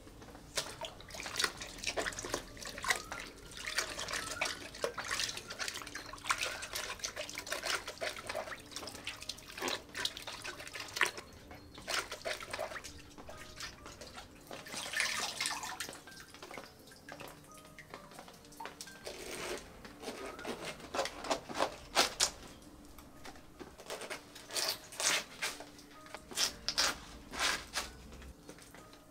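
Water splashing and dripping in irregular bursts, with sharp clicks from handling food and utensils.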